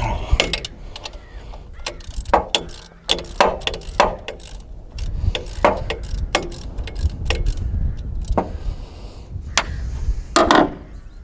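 Ratchet wrench clicking in short, irregular strokes as an alternator mounting bolt is worked loose, with one louder clack near the end.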